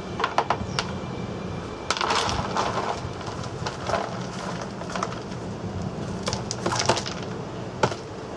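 Irregular sharp snaps and crackles, with a dense cluster of crackling about two seconds in and another near seven seconds.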